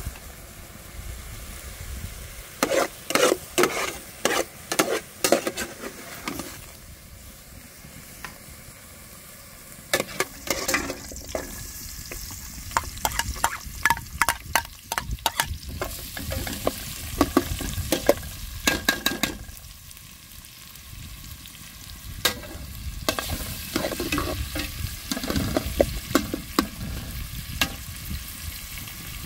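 Food sizzling as it fries in a pan, with a utensil scraping and clinking against the pan in several spells of quick strokes as it is stirred.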